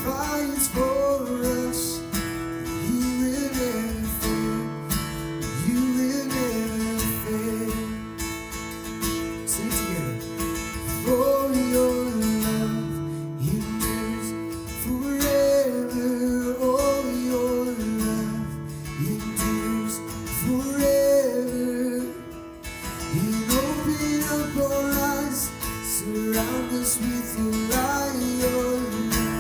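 Worship song played on strummed acoustic guitar, with a singing voice carrying the melody over it.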